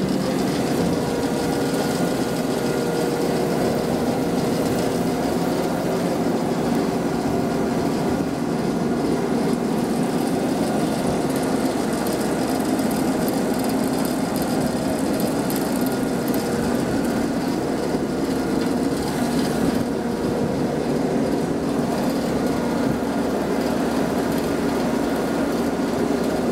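Marine travel lift's engine running steadily with a constant hum while the lift lowers a boat in its slings into the water.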